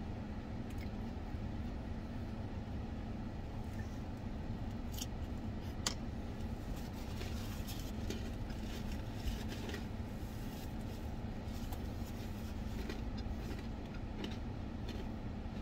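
Steady low hum of a car idling, heard from inside the cabin, with scattered small clicks and rustles of eating and handling a paper napkin; the sharpest click comes about six seconds in.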